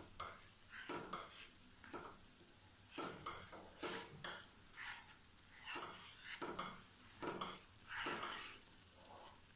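Wooden spatula stirring and scraping thick semolina and gram-flour halwa in a nonstick frying pan, in faint, irregular strokes about twice a second. The halwa is cooking on high flame as it thickens.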